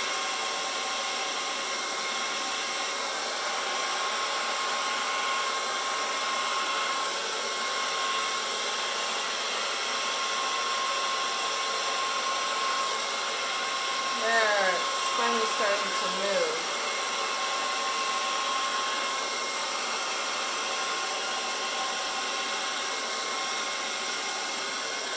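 A plain household hair dryer blowing steadily: a constant rush of air with a fixed whine in it. About halfway through there is a short gliding vocal sound from a person, the loudest moment.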